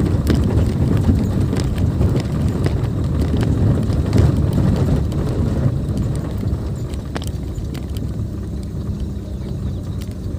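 A car driving over a rough, unpaved dirt track, heard from inside the cabin: a low rumble of engine and tyres with irregular knocks and crunches from stones and ruts, easing slightly over the last few seconds.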